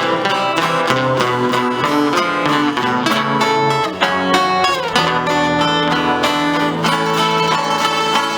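Music led by plucked acoustic guitar, picking a run of notes over lower held tones.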